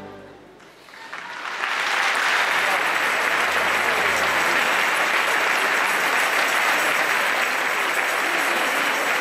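Large audience applauding: the clapping swells up about a second in and then holds steady and loud.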